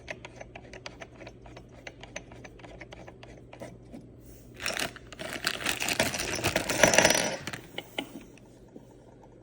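Small metal parts being handled: scattered light clicks and rattles, building about five seconds in to a denser, louder clatter for a couple of seconds, then quieting.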